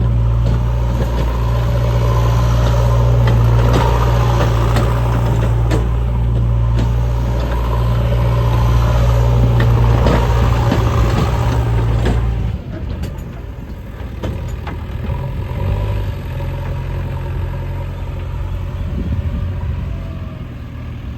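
Diesel engine of a JCB 3DX backhoe loader running hard with a steady low drone, then dropping to a quieter, lower-revving note about twelve seconds in, as if throttling back toward idle.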